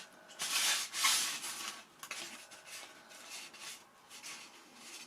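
Foam RC model aircraft wing being handled and turned over: rubbing and rustling, strongest for the first second and a half, then faint scuffs and small ticks.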